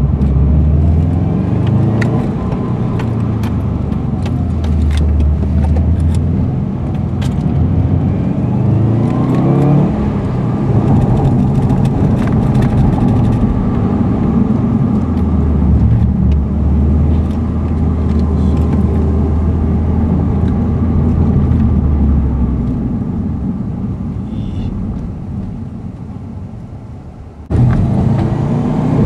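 Subaru Impreza's flat-four engine and tyre noise heard from inside the car while it is driven. The engine note rises as the car speeds up about nine seconds in. Later the sound eases off and fades, then jumps back up abruptly near the end, with scattered clicks throughout.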